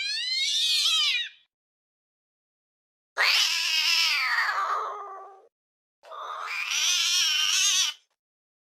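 Angry domestic cat yowling, the drawn-out caterwaul of a cat ready to fight: three long calls with silent gaps between, the first rising then falling in pitch, the later two harsher.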